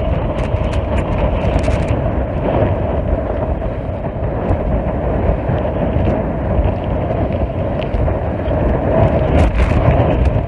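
Strong wind buffeting the microphone aboard a sailboat under sail in near-gale conditions, with a steady hum underneath and scattered clicks.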